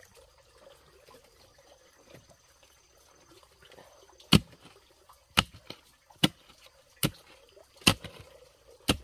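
Six sharp knocks, about one a second, starting about four seconds in after a faint background.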